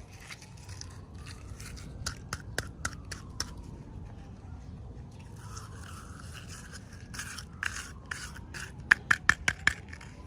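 Toy packaging being handled and opened by hand: scraping and crinkling with scattered sharp clicks, and a quick run of louder clicks near the end.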